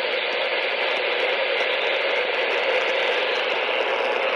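Steady hiss of radio static, even and unbroken, with no tones or voice over it.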